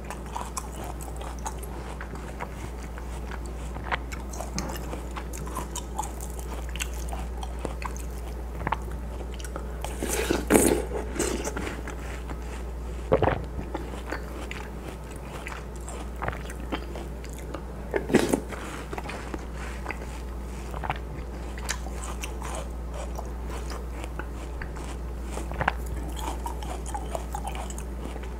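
Close-miked chewing and biting of juicy watermelon chunks and fruit from watermelon hwachae, with many small wet mouth clicks and louder bites about ten, thirteen and eighteen seconds in. A steady low hum runs underneath.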